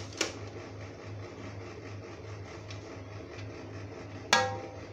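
A serving dish knocks against the rim of a cooking pot while boiled rice is scooped in: a sharp knock just after the start, then a louder ringing clink about four seconds in. A low steady hum runs underneath.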